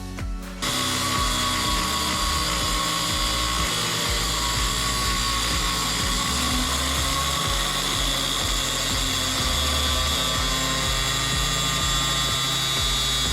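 Power cutting tool running steadily through the rusted top of an old rear shock absorber, with a steady high whine; it starts about half a second in. Background music underneath.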